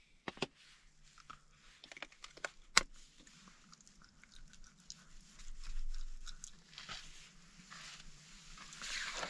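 Faint teeth-cleaning mouth sounds: scattered small clicks and short stretches of scrubbing, with one sharper click about three seconds in.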